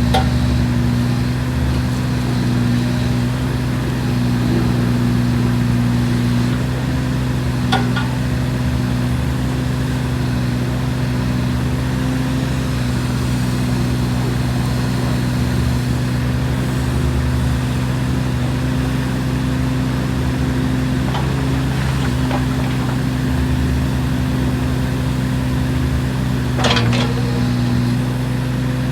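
Kubota KX016-4 mini excavator's three-cylinder diesel engine running steadily, with a few brief knocks about a third of the way in and near the end.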